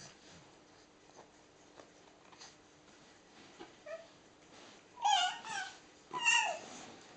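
Baby giving short high-pitched squeals: a small squeak about four seconds in, then two louder squeals, rising and falling, about five and six seconds in. Before them, only faint soft handling sounds.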